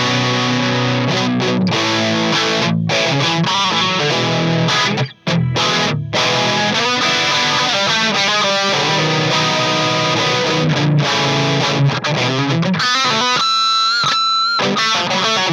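Electric guitar played through a Joyo Time Magic delay and Future Chorus pedal into a distorted Orange Micro Terror amp: chords and melodic runs with a brief break about five seconds in. Near the end, held notes waver in pitch.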